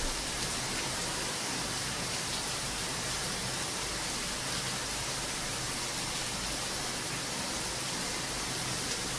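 Heavy rain falling steadily, a dense even hiss with a few faint sharper drop ticks; no thunder.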